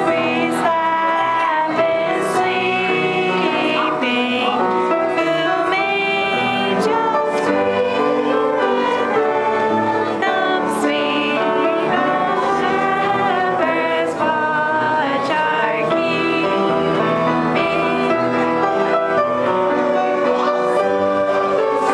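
A Christmas carol with singing and instrumental accompaniment.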